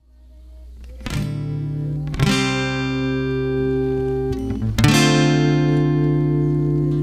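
Instrumental music on acoustic guitar: three chords, each strummed once and left to ring, about one, two and five seconds in, over a steady low note, fading in at the start.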